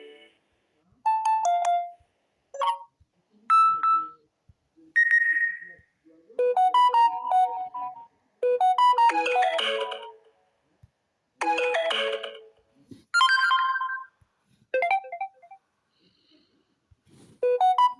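A run of about ten different notification and ringtone sounds played one after another. Each is a short chime or few-note melody lasting about a second or two, with brief silences between them.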